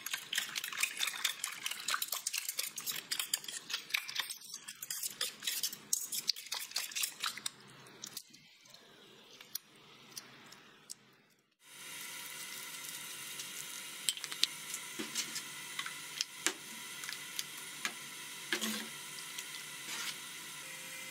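Fork whisking eggs in a stainless-steel bowl, a rapid run of clicks against the metal for about eight seconds, then a softer trickle as a liquid is poured into the egg mixture. Partway through, the sound changes abruptly to a steady hum with occasional clinks of a ladle stirring the mixture in a steel pot.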